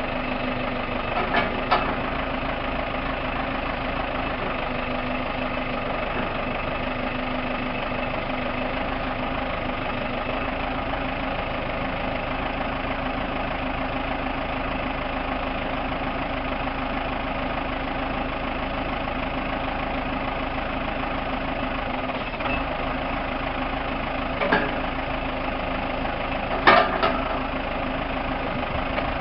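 Diesel engine of a Case 580M loader/backhoe idling steadily at an even speed, with a few short knocks about a second in and twice near the end.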